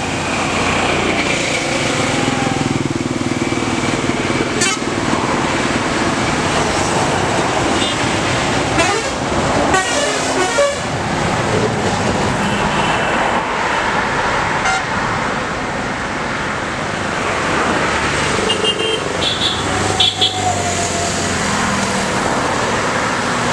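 Steady highway traffic: motorcycles, scooters, buses and trucks passing close by. Horns toot now and then, with a few in quick succession near the end.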